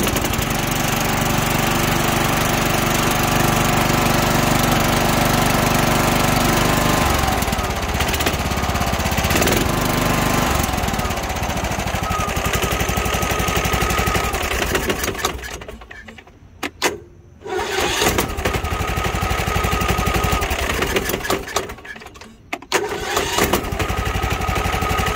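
Riding mower's Kohler SV610 single-cylinder engine running, switched off twice, and each time restarted with the key after a second or so, catching promptly. It now starts every time, the clicking no-crank fault cured by a new battery and clean connections.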